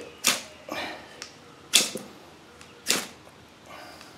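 Spine of a Morakniv carbon knife scraped hard along a ferrocerium rod. There are three sharp rasping strikes about a second apart, with lighter scrapes between them.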